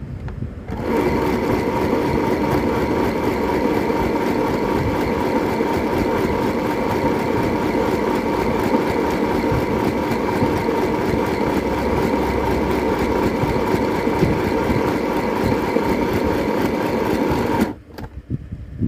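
SewMighty mini portable sewing machine running steadily as it stitches a seam through fabric, starting with back stitching to lock the thread; the motor starts about a second in and stops near the end.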